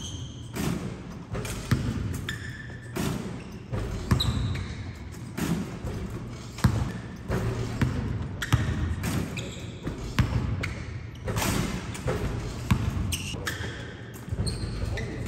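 Basketballs bouncing on a gym court floor in irregular thuds, with short high squeaks mixed in.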